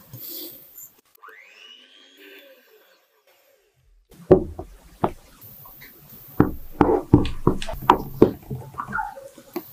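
A silicone spatula knocking and tapping against a glass mixing bowl while batter is folded. A run of irregular, sharp knocks starts about four seconds in, a few a second.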